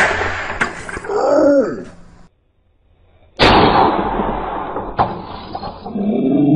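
A spud gun's brass valve blowing off under about 125 PSI: a sudden loud pop and a rush of escaping compressed air, then a man's yell. The blast and yell are heard twice, the second starting a little over three seconds in.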